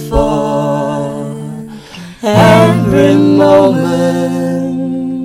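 Acoustic guitar chords strummed under a man and a girl singing together in long held notes. A new chord is strummed about two seconds in, and the sound fades near the end.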